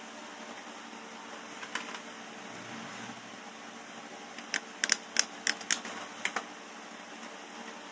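A quick run of about seven sharp, light metallic clicks and taps over two seconds, about halfway through, from perforated sheet metal being handled against a steel bench vise, with a couple of faint clicks earlier. A steady low hum runs underneath.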